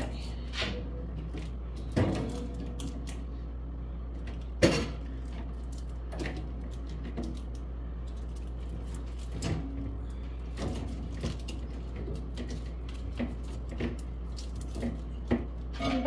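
Scattered light knocks and clatters as items are handled and set down on a refrigerator's wire shelves, the sharpest about two seconds and four and a half seconds in, over a steady low hum.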